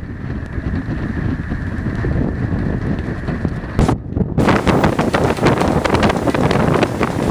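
Hurricane winds rushing and buffeting the microphone, a loud heavy noise. Just before four seconds in it briefly dips, then comes back in harsher, gustier blasts.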